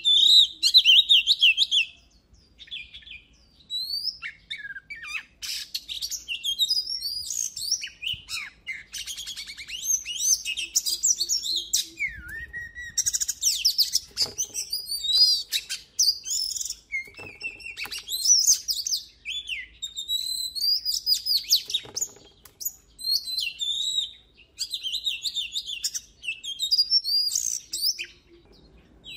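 Oriental magpie-robin singing a loud, varied song of sweet whistles, slurred notes and rapid chattering trills, in phrases broken by short pauses.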